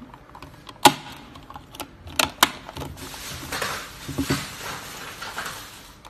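Small plastic toy refrigerator being handled: three sharp plastic clicks and snaps in the first two and a half seconds as its doors are shut, the first the loudest, then a few seconds of softer scraping and handling noise.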